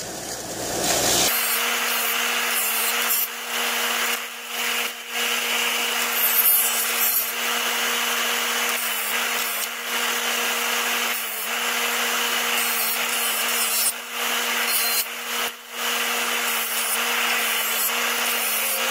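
Columbia bench grinder running with a wire wheel, scrubbing a small steel screw held in pliers: a steady motor hum under a harsh scratching that lets up briefly several times as the part is lifted and turned. The wire wheel is cleaning corrosion and grime off the outboard's lower-unit mounting screws.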